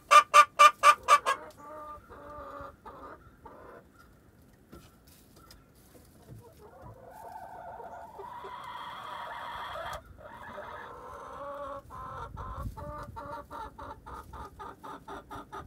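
Hens clucking: a loud, fast run of clucks, about five a second, that stops about a second in. Then softer calls, a longer drawn-out call in the middle, and another run of quicker, quieter clucks near the end.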